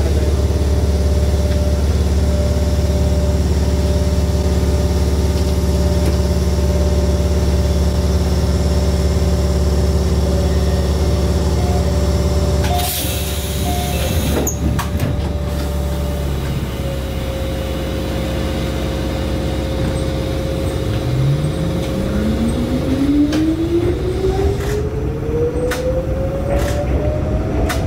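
Mizuma Railway 1000 series electric train standing at a station, its onboard equipment giving a steady low hum. About 13 seconds in there is a short hiss of compressed air with a few clicks, as the doors close and the brakes release. Near the end the train pulls away, and its traction motors whine in a smoothly rising pitch as it accelerates.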